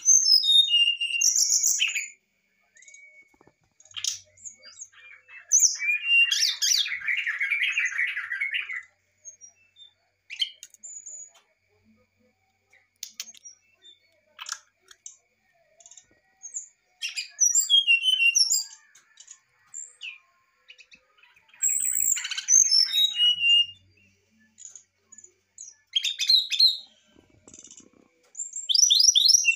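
Brown-chested jungle flycatcher singing in separate phrases with pauses of several seconds between them: clear whistled notes sliding down in pitch, and a harsher, dense chattering phrase about six seconds in.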